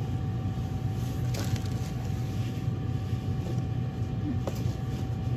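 Steady low hum of convenience-store ambience with a faint steady tone, broken by two light clicks, about a second in and again near the end, as plastic-wrapped cup noodle containers are handled.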